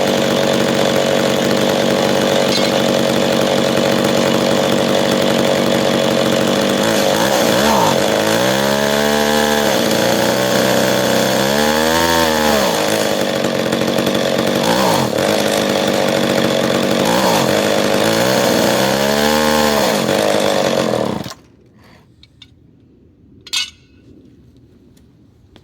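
McCulloch 10-10 Automatic two-stroke chainsaw idling and revved three times. Each rev rises and falls back without reaching full speed, a sign of the saw not wanting to rev all the way up. The engine cuts off suddenly about 21 seconds in, and a single sharp knock follows a couple of seconds later.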